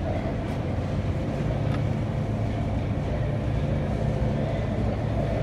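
Steady low droning hum of a supermarket's open refrigerated meat case, with a few faint clicks.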